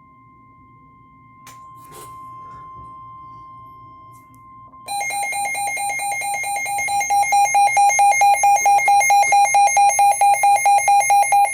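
Weather-radio emergency alert tones for a severe thunderstorm warning: a faint steady tone, then about five seconds in a loud, rapidly pulsing alarm beep with a buzzy edge takes over, getting louder about two seconds later.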